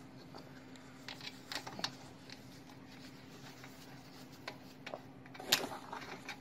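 Faint, scattered metallic clicks and scrapes as wing nuts are threaded by hand onto the burner-assembly studs of a kerosene heater, with one sharper click near the end, over a steady low hum.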